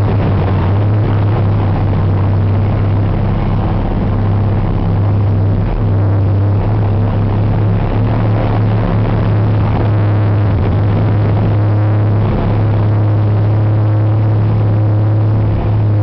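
Heavy diesel engines of an underground bogger loader and a 55-tonne haul truck running together, a loud, steady low drone.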